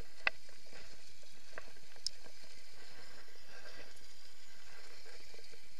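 A hooked wels catfish thrashing and churning the water at the surface, heard as a steady splashing wash, with a couple of sharp clicks.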